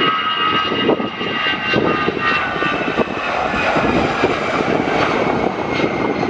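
Twin-jet Airbus A319 running its engines at takeoff power on the takeoff roll: a steady rumbling roar with a high fan whine that drops slightly in pitch as it passes.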